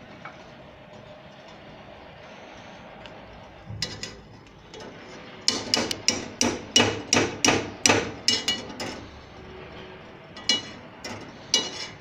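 A metal spoon tapping against the rim of a small stainless steel pot, knocking comb honey off the spoon into it. From about halfway in there is a quick run of about a dozen ringing taps, and a few more near the end.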